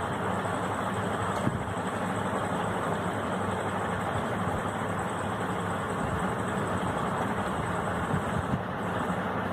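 Steady, unchanging machine-like background noise with a low hum.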